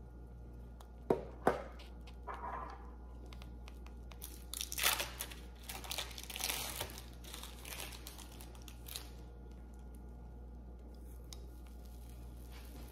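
Two sharp clicks, then the plastic wrapper of a cheese slice crinkling and tearing as it is peeled off.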